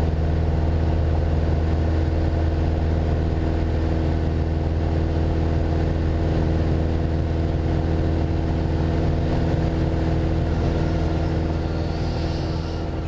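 Piper Archer II's four-cylinder Lycoming engine and propeller droning steadily in cruise, heard inside the cockpit as a deep, even hum. It gets a little quieter near the end.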